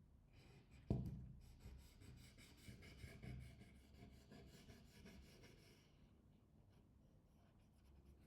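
Faint rubbing of a cloth or swab being wiped over a phone's frame while cleaning it with isopropyl alcohol, with a single sharp tap about a second in. The rubbing fades after about six seconds.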